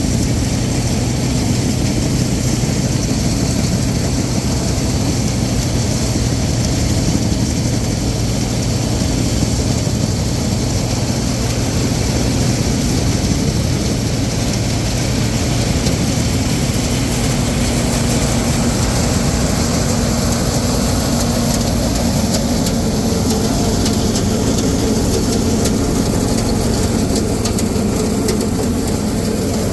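Combine harvester running steadily with a constant low engine hum.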